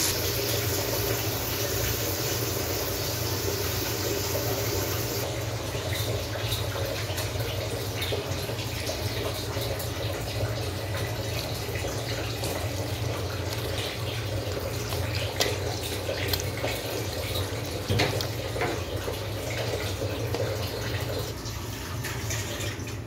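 Water poured into an aluminium pot of chopped vegetables, a steady splashing hiss that stops abruptly about five seconds in. After that, a steel ladle stirs the vegetables and water, with scattered clinks and scrapes against the pot over a steady low hum.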